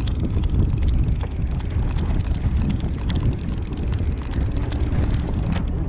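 Wind buffeting the camera microphone on a fishing boat, a steady low rumble with a few faint light clicks over it.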